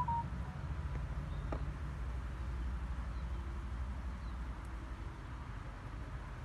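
Outdoor background noise: a steady low rumble with a faint hiss, a brief high chirp right at the start and a faint click about a second and a half in.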